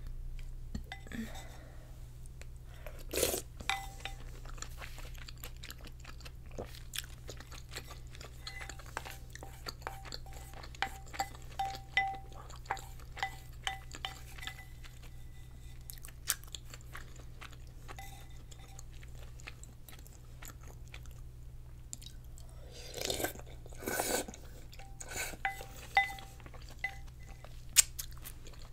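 Close-miked eating of dumpling rice cake soup: chewing and mouth sounds, with many small clicks and taps of chopsticks against the bowl, some leaving a brief ring. A few louder mouth noises come about three seconds in and twice near the end, over a steady low hum.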